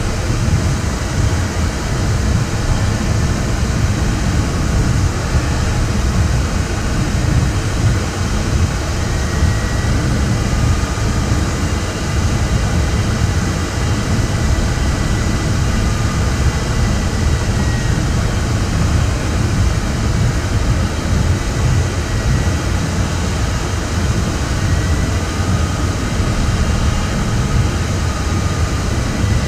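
Steady rush of air past the cockpit of an ultralight sailplane in gliding flight, heavy and deep, with a faint high tone drifting in pitch now and then.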